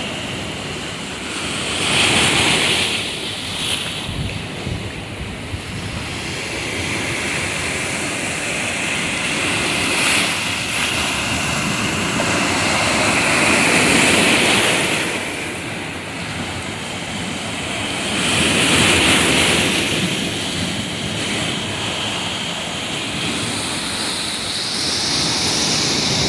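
Sea surf rushing into a narrow stone channel and foaming over rocks: a continuous wash of water that swells louder every few seconds as each wave comes in.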